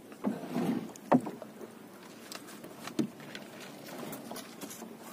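Knocks and bumps on a small fishing boat's hull with water sloshing and splashing, as a fisherman leans over the side to pull in a floating net by its float; a sharp knock stands out about a second in.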